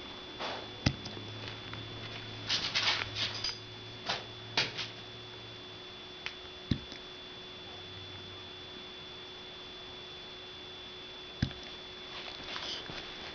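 Puppy hiccupping: a few short, sharp hiccups spaced several seconds apart, with soft scuffling and patter in between.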